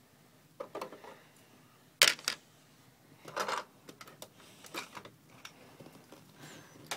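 Lego plastic pieces clicking and clattering as the roof sections of a Lego build are pulled off and handled: a few scattered clicks and knocks, the sharpest about two seconds in.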